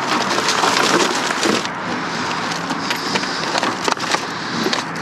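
Rummaging through dumpster contents: dense rustling and clattering of debris with many small knocks, busiest for the first second and a half, then lighter.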